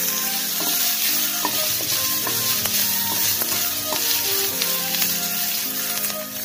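Drumstick flowers and chopped onion sizzling in hot oil in a frying pan. A wooden spatula stirs them, scraping and tapping against the pan several times. Soft background music plays underneath.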